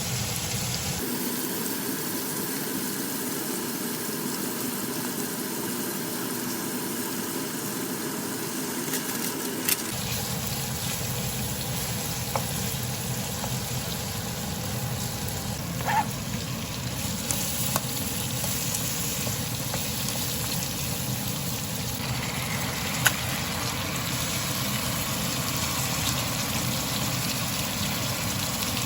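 Food sizzling as it fries in a pan: a steady hiss with a few light clicks and knocks. The background changes abruptly about a second in and again about ten seconds in.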